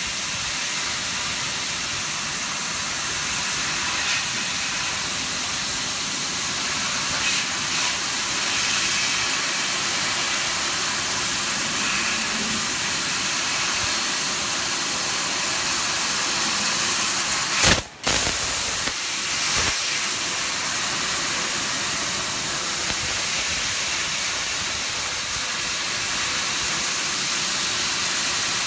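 Steady loud hiss of a 1000 W fiber laser cutting head's assist-gas jet blowing through the nozzle while it cuts 4 mm stainless steel sheet. The hiss breaks off very briefly about two-thirds of the way through, then carries on.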